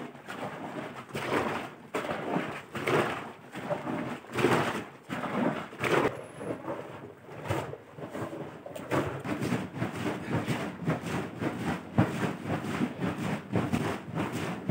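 Liquid sloshing inside a goatskin butter churn as it is rocked and shaken to make butter: rhythmic sloshing strokes, about one every second and a half at first, quickening to around two a second after about nine seconds.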